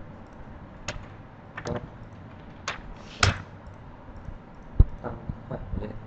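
Irregular clicks and taps of a computer mouse and keyboard on a desk, with a louder knock about three seconds in and a dull low thump near the end.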